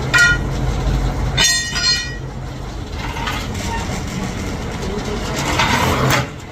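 An engine running steadily at a low hum, with a short horn toot at the start and a longer toot about a second and a half in. A brief clatter near the end.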